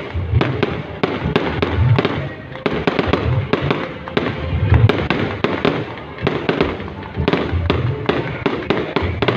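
Fireworks going off in a continuous barrage of sharp cracks, with deeper booms about once a second.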